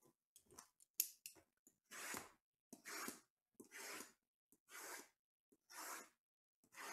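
Faint soft swishes of a hand brushing and sliding over stacked shrink-wrapped cardboard card boxes, about one a second, after a small click about a second in.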